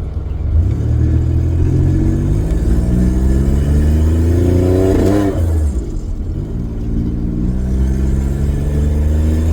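Turbocharged V6 Commodore accelerating under light throttle, its exhaust running straight out the turbo dump pipe. The engine note climbs, drops at a gear change about five seconds in, then climbs again and drops at a second shift near the end.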